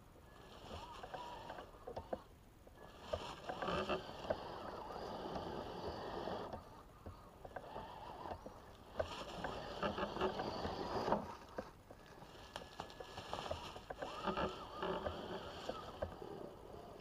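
A Traxxas TRX-4 Sport RC crawler climbing a steep bank: its electric motor and drivetrain whine in bursts, with short pauses between throttle pulls, while the tires scrabble over dry leaves and dirt.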